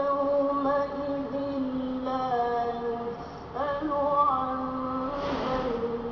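Melodic Arabic Quran recitation by a single voice, chanted in long held, ornamented notes. It comes in two phrases with a short pause between them about three and a half seconds in.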